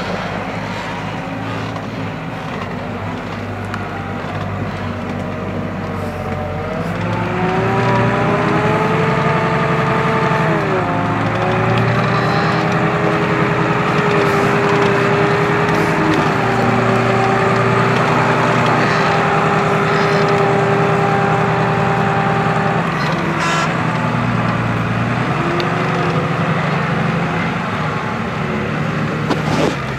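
New Holland M135 tractor's six-cylinder diesel engine working under heavy load as it pulls a mounted plough through mud. About a quarter of the way in it grows louder and a whining tone comes in. The whine rises and dips, then holds steady for several seconds before falling away.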